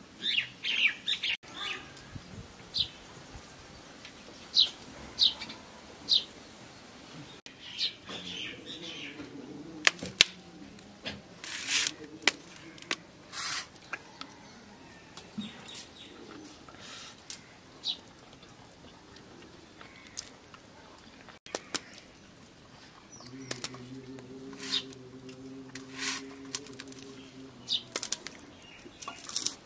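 Close-up eating sounds of rice and fish curry eaten by hand: wet lip smacks and chewing clicks in short, irregular bursts, mixed with short high chirps. A low steady hum lasts a few seconds near the end.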